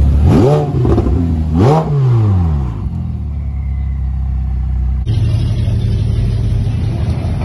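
Ferrari F8 Tributo's twin-turbo V8 blipped twice, the revs rising and falling each time, then settling to a low steady run. About five seconds in, it cuts to a classic Chevrolet Impala's engine running steadily at low revs.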